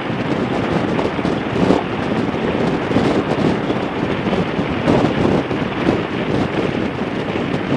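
Wind buffeting the microphone of a motorcycle moving at highway speed, a steady rush that swells and dips in gusts.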